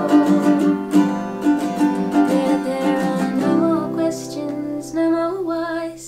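Acoustic guitar and ukulele strummed together with a woman singing. About three and a half seconds in, the strumming gives way to a held chord under long sung notes, which stop just before the end.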